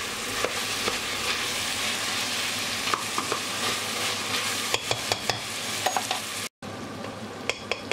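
Diced beef and onions sizzling as they fry in butter and oil in a pressure-cooker pot, stirred with a plastic spoon that scrapes and knocks against the pot several times. After a sudden break near the end, a quieter sizzle follows with a few sharp taps.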